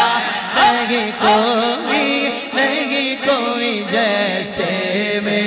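A crowd of men chanting a naat refrain together with the reciter, unaccompanied voices in long, wavering melodic lines over a steady low hum.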